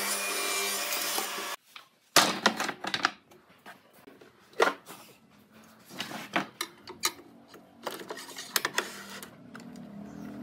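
Table saw ripping a board, its blade and motor running steadily, cutting off suddenly about a second and a half in. Then a series of irregular sharp knocks and clatters as a jig is set down and shifted on the saw's metal table.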